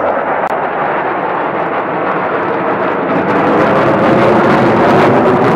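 Jet engines of a four-ship formation of fighter jets flying past: a loud, steady rush of jet noise that grows a little louder over the last couple of seconds.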